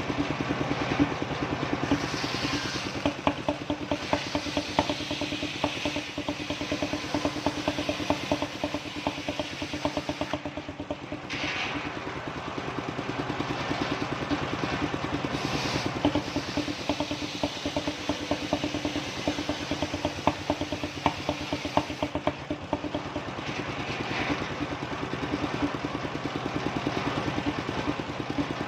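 Engine-driven circular sawmill running steadily with a fast engine beat, the blade noise swelling several times as it cuts through kenanga wood.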